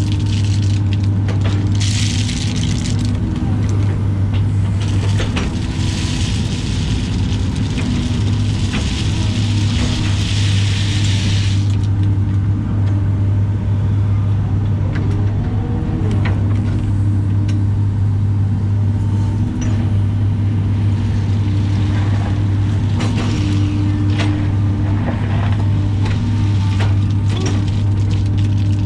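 Caterpillar excavator's diesel engine running steadily, heard from inside the cab, with a higher tone that comes and goes as the hydraulics work the boom and bucket. Crushed driveway rock hisses and rattles as the bucket scoops and dumps it; this is loudest in the first part and stops suddenly about twelve seconds in, leaving scattered knocks of rock against the bucket.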